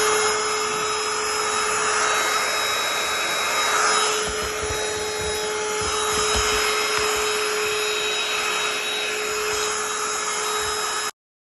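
Small handheld vacuum running steadily with a constant motor whine, cutting off suddenly near the end.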